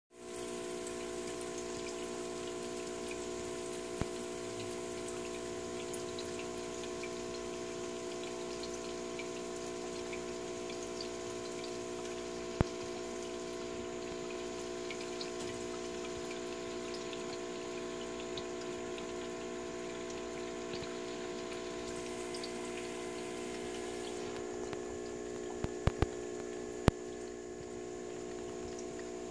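Aquarium pump humming steadily with water bubbling and trickling in the tank. A few sharp clicks cut through it, one about halfway and several close together near the end.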